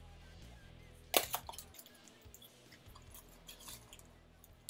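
An unboxed item and its packaging being handled: one sharp click or snap about a second in, then a few faint crinkles and taps, over faint background music.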